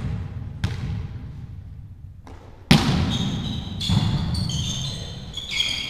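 A volleyball being struck during a rally: sharp slaps that echo around a large sports hall, the loudest about two and a half seconds in, followed by short high squeaks.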